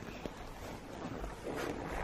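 Faint footsteps and rustling over a low steady hiss, with a soft click early on and the rustling a little louder near the end.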